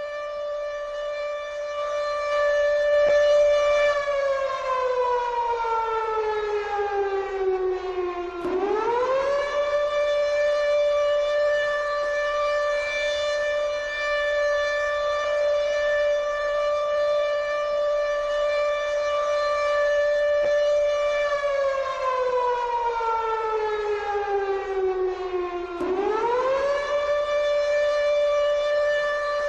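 Civil defence siren sounding a nuclear-attack warning: a loud, steady wailing tone that twice slides slowly down in pitch over about four seconds, then swoops quickly back up and holds.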